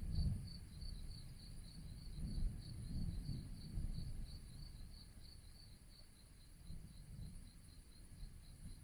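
A cricket chirping steadily, about four to five high-pitched chirps a second, over a low rumble that swells and fades.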